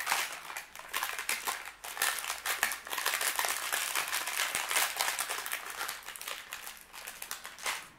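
Plastic snack-cookie wrapper crinkling and crackling as it is handled, a dense run of sharp crackles.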